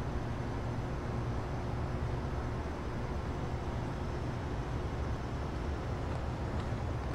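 Steady low rumble of a distant vehicle over night-street background hiss, with a few faint ticks near the end.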